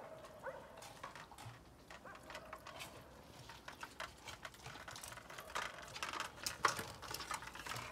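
A dog eating from a steel plate on the ground: quick, irregular clicks and smacks of chewing and lapping, thickest about five seconds in, after a short whine at the start.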